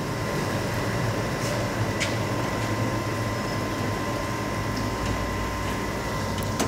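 Steady low machine hum with a thin, high steady whine over it, and a couple of light clicks about one and a half and two seconds in.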